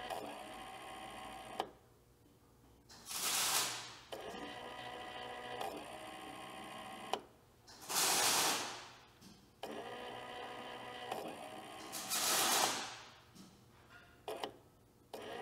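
The sharpening-stone drive of a John Deere 6000 series forage harvester running as it moves the stone carriage. It makes a steady mechanical whine in stretches, broken by short gaps, with a burst of hiss about every four to five seconds.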